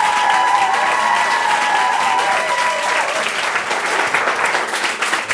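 Audience applauding and cheering, with a held high tone over the first three seconds.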